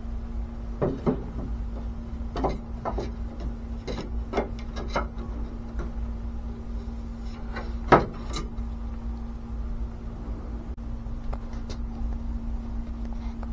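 Wooden pieces being handled and knocked against each other and the work: a scatter of short wooden knocks and clacks, the sharpest one about eight seconds in, over a steady low hum.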